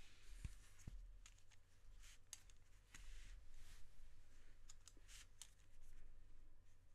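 Faint handling sounds of a ballpoint pen over drawing paper: soft rustles, a few small clicks and two soft bumps early on.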